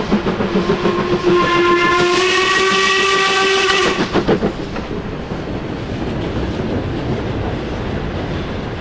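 Steam locomotive whistle blowing one long blast of about four seconds, its pitch creeping slightly upward, as the engine passes close below. After that the locomotive and its carriages run past with a steady rumble.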